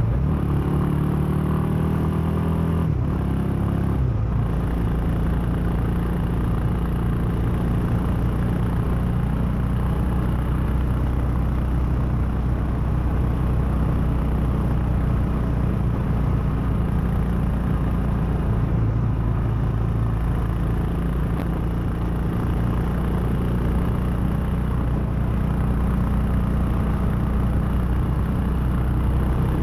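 Royal Enfield Himalayan's 411 cc single-cylinder engine under way. Its note rises for the first few seconds, breaks briefly about four seconds in, then runs steadily.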